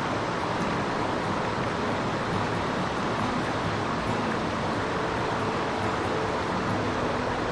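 Shallow stream rushing steadily over rocks and small cascades, an even wash of water noise with no breaks.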